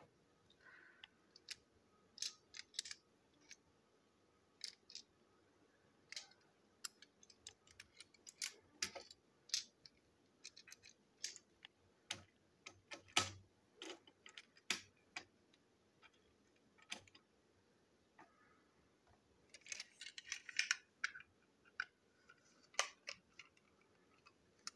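Light, scattered clicks and small knocks of hard plastic toy train wagons being handled and set down on a tabletop, with a quick flurry of clicking about twenty seconds in.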